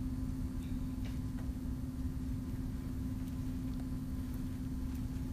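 Steady electrical hum with a low rumble, the room tone of a sound system, with a few faint scattered ticks.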